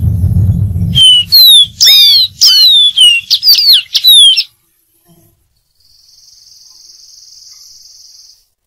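Dark-throated seedeater singing a rapid run of loud, clear, down-slurred whistles for about three seconds, after a low rumble. Later there is a faint, steady, high hiss.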